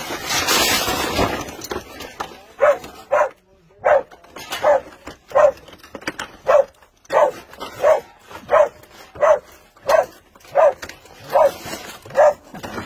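Search-and-rescue dog barking over and over, short barks about every 0.7 s: the trained bark alert that signals a live person found buried in the debris. A rustling noise fills the first two seconds before the barking starts.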